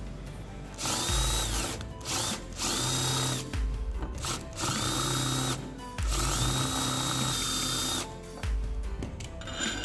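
Electric drill with a twist bit boring into a cast aluminium waffle pan, run in about four bursts; each starts with a rising whine, holds steady while cutting, and drops as the motor stops. A steady music beat plays underneath.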